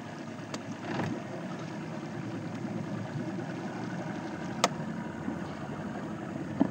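Boat engine idling with a steady low rumble, broken by a few short sharp clicks, the loudest about four and a half seconds in and another near the end.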